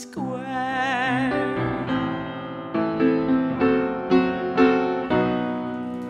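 Upright piano accompaniment with a woman's voice holding a sung note with vibrato in the first second or so, followed by a short piano interlude of struck chords, about two a second.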